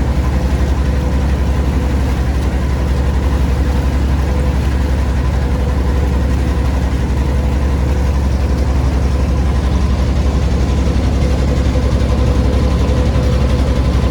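An engine running steadily at a constant speed, with a deep hum and a faint steady tone above it.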